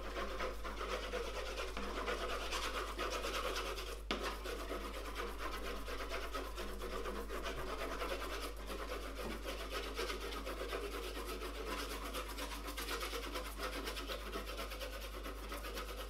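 Red chalk scratching and rubbing across paper on an easel: continuous dry scraping of drawing strokes, with one sharp tap about four seconds in.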